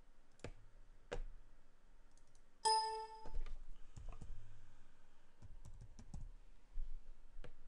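Scattered computer keyboard keystrokes and mouse clicks, a few single taps and then a quick run of keys a little after the middle. About three seconds in, a short electronic beep with a steady pitch sounds once.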